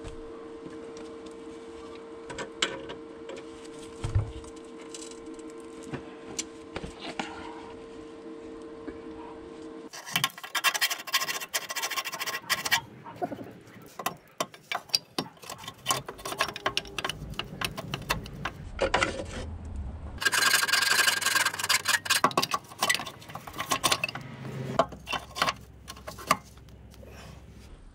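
A steady hum for about ten seconds, then irregular scraping and rasping of metal being filed and worked by hand on the suspension's control-arm bracket, to enlarge the bracket's hole. The scraping comes in dense clusters, heaviest about a second after the change and again near the twenty-second mark.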